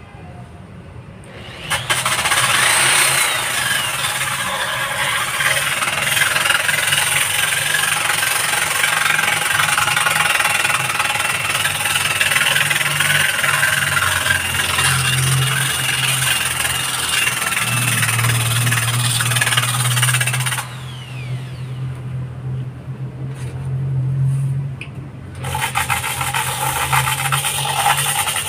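Electric drill driving a zirconia flap disc on a bolt, used as a makeshift sander, grinding against a mold-stained concrete wall: a loud, rough grinding over the drill motor's steady hum. The grinding starts about two seconds in, drops away for a few seconds near the end while the drill keeps running, then starts again.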